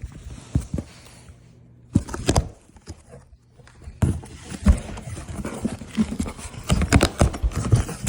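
A cardboard box being handled and opened: irregular knocks, taps and rustling, sparse at first and then busy from about halfway through.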